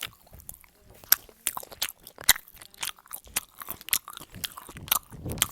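A person chewing and biting food close to the microphone: many short, irregular mouth clicks and crunches.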